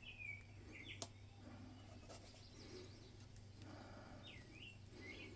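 Near silence with faint songbird chirps, short slurred calls a few times, and one soft click about a second in.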